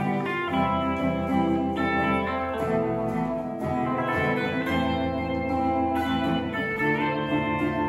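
Guitars playing an instrumental passage of a slow song: a melody on electric guitar over a second guitar's accompaniment.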